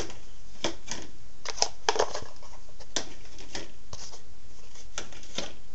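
Hard plastic storage bins being handled on a wall-mounted rack: about a dozen light, irregular clicks and taps over a steady background noise.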